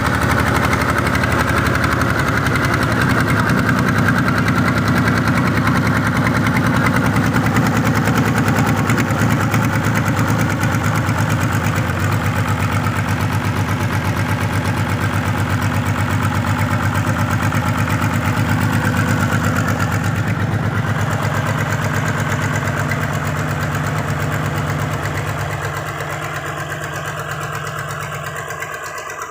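A sawmill's engine running steadily with an even, knocking beat, then dropping off in level near the end.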